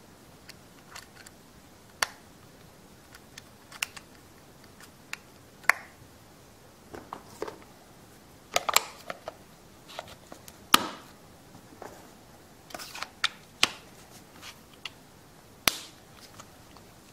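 Scattered sharp plastic clicks and snaps from a Honeywell Dolphin 6000 rugged handheld computer as its card slot, battery and back cover are handled and pressed into place.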